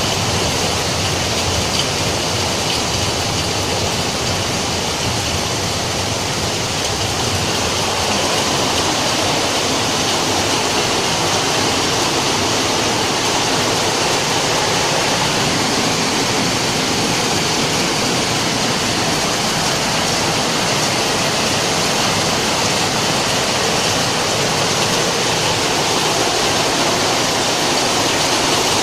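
Rain falling steadily, an even, dense hiss with no breaks.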